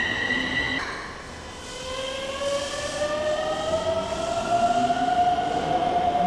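Electric subway train's traction motors whining as it pulls away from the platform. A high whine cuts off about a second in, then a lower whine rises steadily in pitch as the train accelerates.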